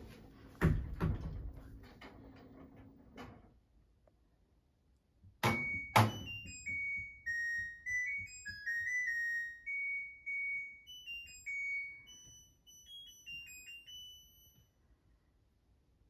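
LG front-load washing machine tumbling a load, clothes thumping dully in the drum for the first few seconds. Then two sharp thunks about five and a half seconds in, followed by the washer's electronic end-of-cycle melody, a string of beeps stepping up and down in pitch for about eight seconds, signalling the wash is finished.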